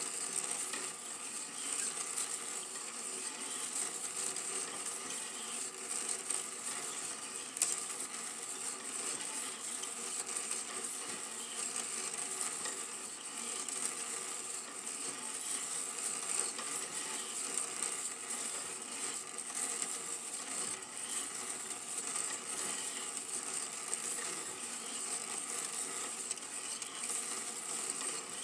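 Super 8 film projector running: a steady mechanical clatter from the film transport with a high hiss, and one sharper click about seven seconds in.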